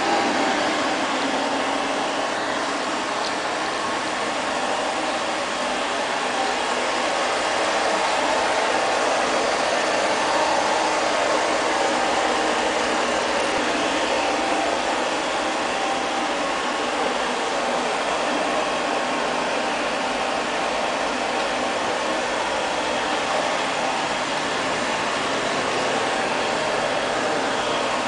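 ILIFE LL-306 (X500) robot vacuum cleaner running, a steady whir of its suction fan and brushes with a faint steady tone in it.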